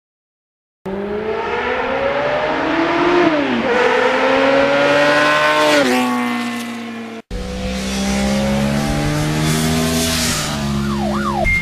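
Engine accelerating hard, its pitch climbing and dropping back at gear changes about three and six seconds in. An abrupt cut at about seven seconds leads into a second acceleration.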